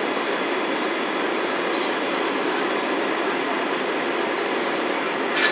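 Airbus A321-211 cabin noise in climb: a steady, even rush of the jet engines and airflow heard from a window seat over the wing. A short, sharper sound comes just before the end.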